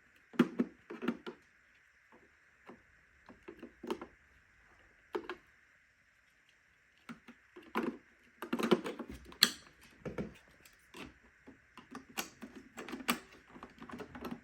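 Irregular clicks and knocks of a Shark IQ robot vacuum's parts being handled as its filters are taken out and changed, coming thicker in the second half, over a faint steady high hum.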